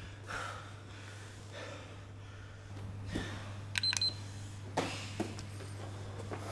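Quiet room tone with a steady low hum and a few soft clicks, broken about four seconds in by a short, high electronic beep.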